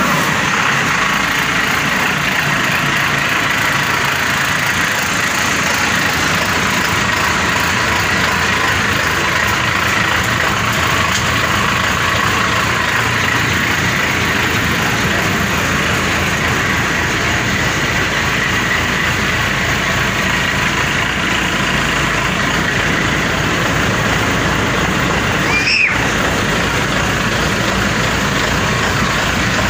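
A Maxxi Bimo 102 SS combine harvester's engine running steadily at idle, with a momentary dropout near the end.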